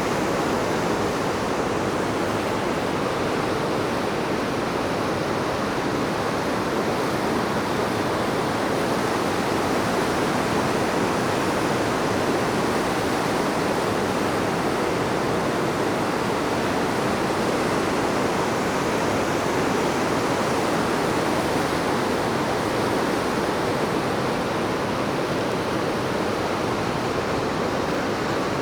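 Waterfall, its falling water making a steady, unbroken rushing noise.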